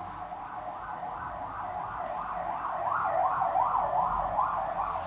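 Emergency vehicle siren with a fast rise-and-fall wail of about two to three sweeps a second, growing louder to a peak past the middle and then fading as it passes.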